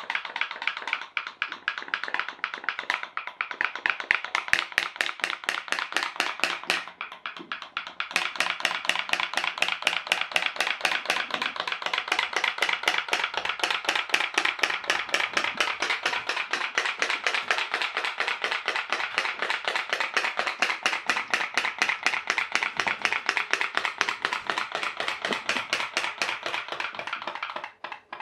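Homemade pop-pop (putt-putt) steam boat popping in a fast, even rhythm of several pops a second, its can-and-tube boiler heated by a small cube of firelighter. The pops start uneven with short gaps, settle into a steady run about eight seconds in, and cut off abruptly near the end.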